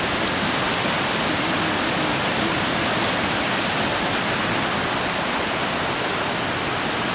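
Small woodland creek cascading over rocks: a steady, even rush of water.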